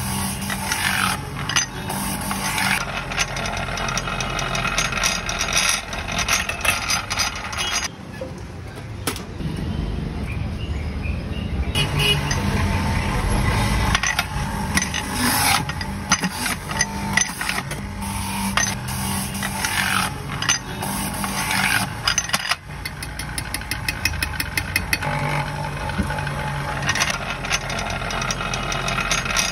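Electric juicer running as fruit pieces are pushed down its feed chute and ground, with street traffic and voices in the background.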